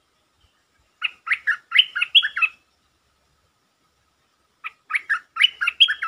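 A bulbul (Malay merbah lekir) singing two short bursts of rapid, quick-changing notes, one about a second in and one near the end.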